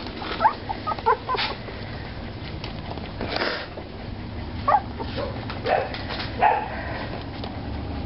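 Three-week-old puppies giving short, high yips and whimpers as they play-wrestle, a handful of separate calls spaced irregularly.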